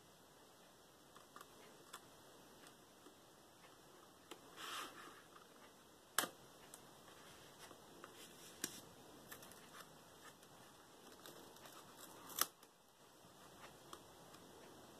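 Quiet handling of paper and card: a brief rustle about five seconds in and scattered light clicks and taps, two of them sharper, about six seconds apart.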